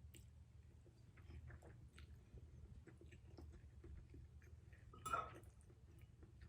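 Faint chewing and small wet mouth clicks of someone eating stir-fried instant noodles, with one brief louder mouth sound about five seconds in.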